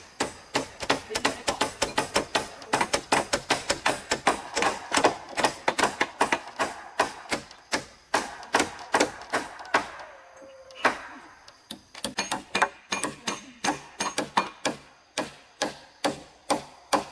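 Hammering: quick, uneven blows, several a second, from more than one hammer at once, easing off briefly about ten seconds in.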